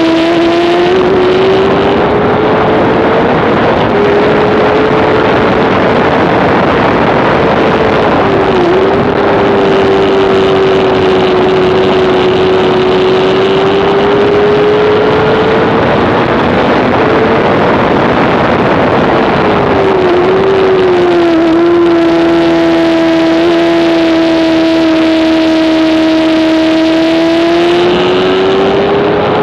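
A 2007 Honda CBR600RR's inline-four engine running at high revs under race throttle. The engine note climbs at the start, holds high for long stretches, dips briefly twice, and climbs again near the end.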